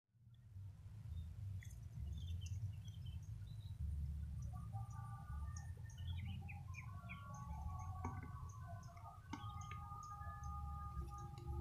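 Several birds chirping and calling: many short high chirps mixed with longer whistled notes, over a steady low rumble. Two sharp clicks come about two-thirds of the way through.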